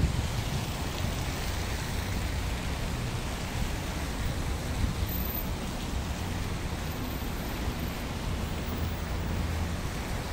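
Steady city traffic noise: cars moving slowly along a slushy, snow-covered road, an even hiss over a low rumble.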